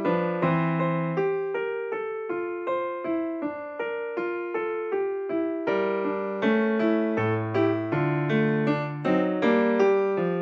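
Background piano music: a melody of evenly paced single struck notes, about three a second.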